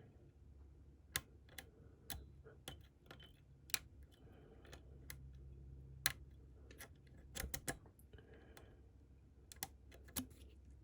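Lock pick and tension tool working the pins of a Medeco cam lock: small, sharp metallic clicks and taps at irregular intervals.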